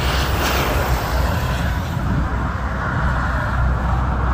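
Steady road traffic on a busy multi-lane bridge: cars passing as an even rumble and hiss, with no single vehicle standing out.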